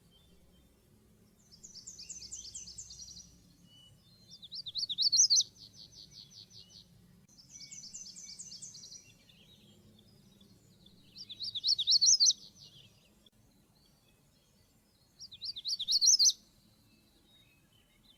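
Magnolia warbler singing short songs every few seconds, each lasting about a second or two. The louder songs are fast runs of notes that climb to an emphatic end, and they alternate with fainter, higher phrases of quickly repeated notes.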